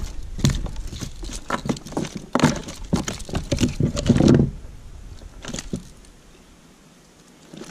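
Small piraputanga flapping on a plastic kayak deck while it is unhooked with pliers: a quick, irregular run of taps and knocks, loudest about four seconds in, then thinning out to a few light taps and quiet near the end.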